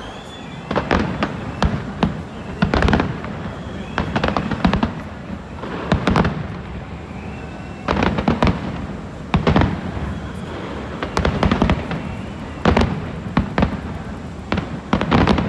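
Fireworks display: aerial shells bursting in a steady series of loud bangs, often two or three in quick succession, every second or two over a continuous background rumble.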